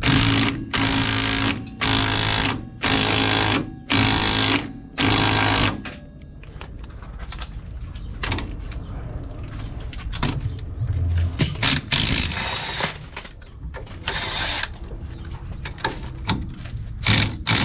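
A power tool run in five short bursts of under a second each, with a steady buzz in each burst. After that come lighter clinks and clatter of tools and parts.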